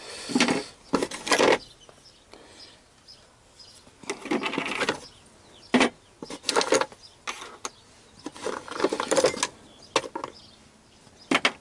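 Small metal spare parts and tools clattering and clinking as a box of odds and ends is rummaged through, in irregular bursts with quieter gaps between.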